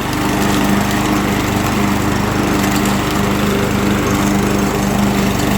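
Briggs & Stratton engine on a Yard Machine self-propelled push mower running steadily at mowing speed, with the blade engaged.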